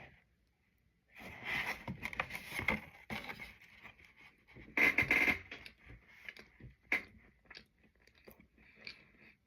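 Scraping and rustling from the cookies and their packaging being handled, in a few bursts with scattered clicks.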